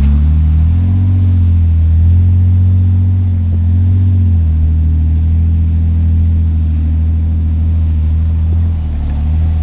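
Vehicle engine running steadily under load while driving, a low drone whose pitch rises slightly about a second in and drops a little about four seconds in.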